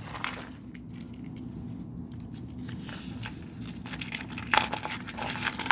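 Small plastic toys being handled and set down: scattered light clicks and crinkling rustle, with a few louder clicks near the end.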